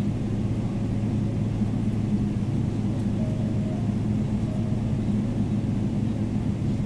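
Steady low hum inside the cabin of a Boeing 777-300ER parked at the gate.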